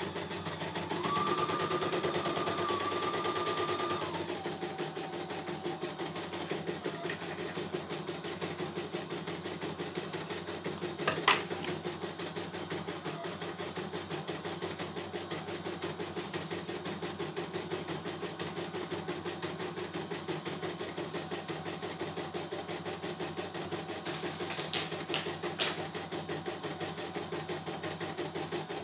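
CNY E900 computerized embroidery machine stitching a design, the needle running at a fast, even rhythm as the embroidery unit moves the hoop. It is louder for a few seconds near the start, with a steady whine, and there are a few sharp clicks around the middle and near the end.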